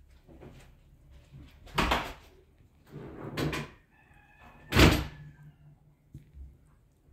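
Three loud, short knocks and rustles, about two, three and a half, and five seconds in, as a pet feeding bottle with a rubber nipple is handled close while a cat licks and mouths the nipple.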